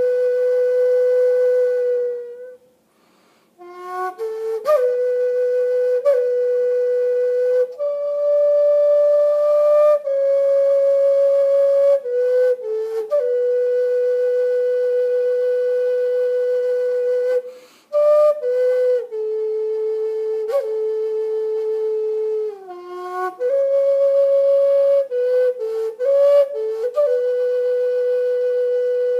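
A solo flute plays a slow melody of long held notes, linked by quick grace-note flicks. It breaks off briefly about three seconds in and again about midway.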